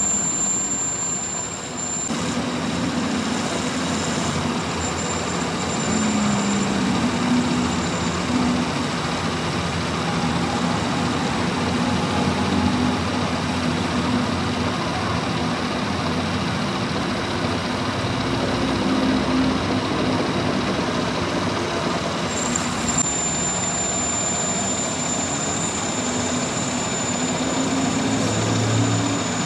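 Machinery running steadily with a continuous drone and a thin high whine that comes back about two-thirds of the way through.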